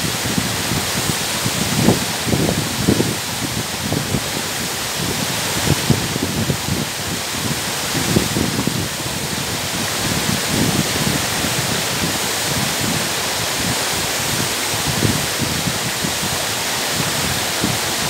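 Waterfall crashing down a rock face onto boulders: a loud, steady rush of falling water, with uneven low rumbles beneath it.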